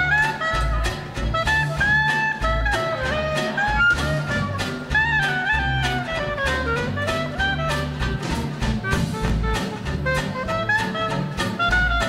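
Small swing jazz band playing live. A clarinet carries the melody in gliding runs over plucked upright bass and drums keeping a steady beat.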